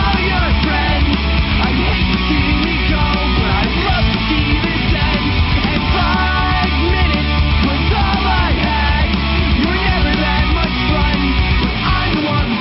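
Loud rock music soundtrack.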